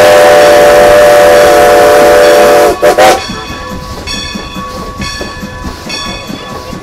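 Steam whistle of Strasburg Rail Road #90, a 1924 Baldwin 2-10-0 Decapod, blowing a long blast of several tones at once, with two short breaks just before it cuts off about three seconds in: sounding for a grade crossing. Then the train runs on much quieter, with a light ringing about twice a second.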